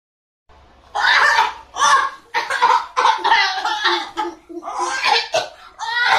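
A person coughing repeatedly, about seven short harsh bursts starting about a second in, some with a voiced, drawn-out tail.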